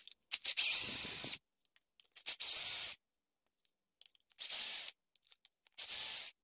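Cordless drill-driver backing the case screws out of a metal RC-car centre differential. It makes four short runs of motor whine, each spinning up and stopping again, about a second and a half apart.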